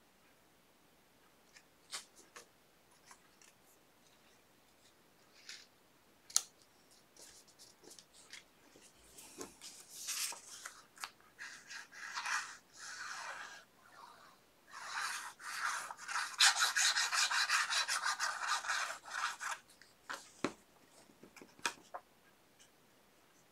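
Paper being rubbed down firmly by hand, a scratchy rasping rub in two stretches of a few seconds each, the second longer and louder, with light taps and clicks of paper handling around them: freshly glued paper layers being pressed flat.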